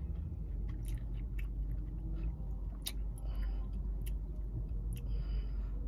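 A person chewing dried mango slices with the mouth closed, with small wet clicks and a couple of soft breaths through the nose, over a steady low hum inside a car cabin.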